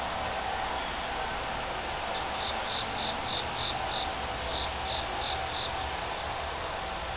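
An insect chirping in short, evenly spaced high notes, about three a second, starting a little after two seconds in and stopping near six seconds, over a steady outdoor hiss.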